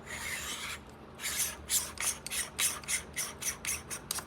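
Wide-angle conversion lens being screwed onto a camcorder's lens threads by hand: a short scrape, then quick rhythmic rasping strokes, about four a second, as it is turned.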